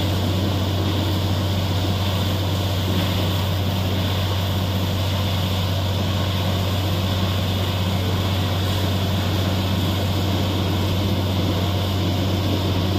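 Truck-mounted borewell drilling rig running steadily: a low engine and air-compressor drone under a constant hiss of compressed air blasting water and rock cuttings up out of the bore, the sign that the well has struck water.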